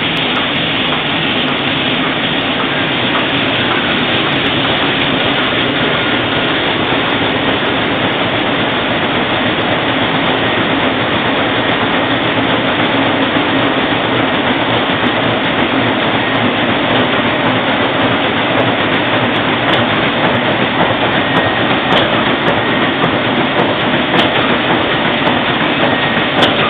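Roland 706 six-colour sheetfed offset printing press running in production: a loud, steady, dense mechanical noise with a faint steady high tone through it and a few sharp ticks near the end.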